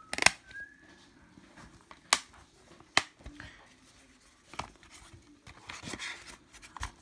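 Plastic DVD case being handled: a few sharp clicks as the disc is pressed onto the centre hub and the case is snapped shut, followed by soft rustling as the case is moved.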